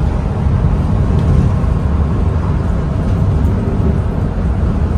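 Steady low rumble of a moving bus: engine and road noise without a break.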